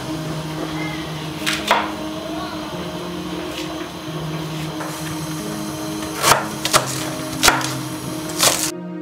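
Chef's knife chopping bell pepper and onion on a wooden cutting board: two sharp knocks about a second and a half in, then four more near the end, over quiet background music.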